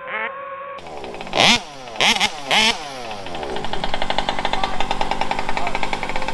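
Large-scale RC car's small engine revved in three quick, loud bursts, then running steadily with a fast, even pulse.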